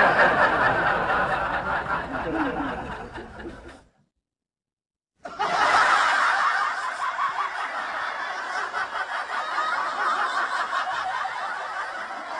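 Laughter, cut off about four seconds in by about a second of dead silence, then going on again.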